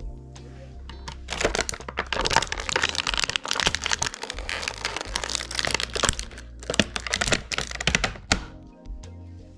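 Plastic toy packaging being handled: a dense run of crackling and clicking that starts about a second in and stops near the end, over background music.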